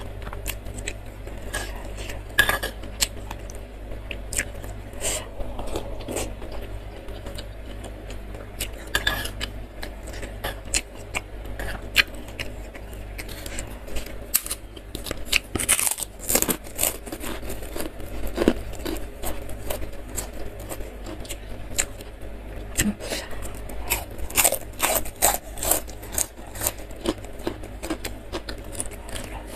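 Close-up eating sounds: a metal spoon clinking and scraping against a stone mortar bowl of fried tofu in broth, crackers being broken and crunched, and chewing, as a string of short sharp clicks and crackles over a steady low hum.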